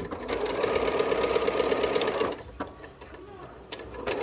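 Elna 6200 Decorator's Touch sewing machine stitching in reverse, a fast, even run of needle strokes that stops a little past halfway, followed by a single click.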